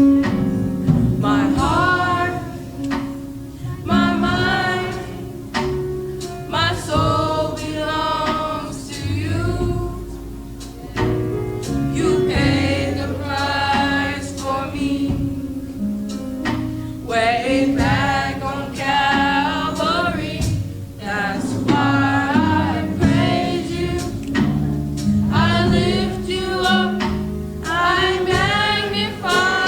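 Youth choir singing a gospel song over instrumental accompaniment, with sustained low notes beneath the voices.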